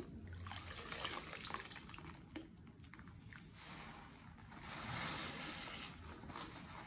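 Dish soap poured onto a soaked sponge, then the sponge squeezed and kneaded by hand in soapy water: wet squelching with trickling and dripping, loudest a little past halfway.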